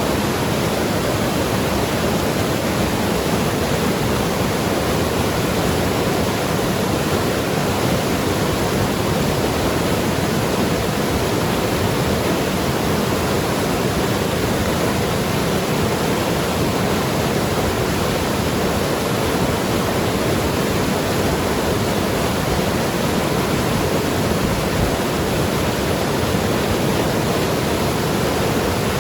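Mountain river rushing and gurgling over rocks, a steady, loud wash of water.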